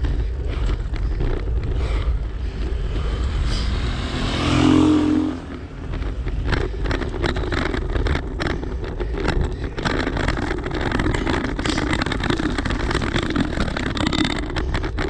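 Road traffic: a motor vehicle passes close by about four to five seconds in, its engine note swelling and fading. Under it is a steady low rumble with scattered clicks.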